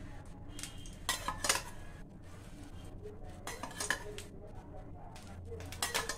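Kitchen utensils clinking and tapping against metal cookware, in three short groups of sharp clinks, while cooking oil is being put over sandwiches toasting on a non-stick tawa.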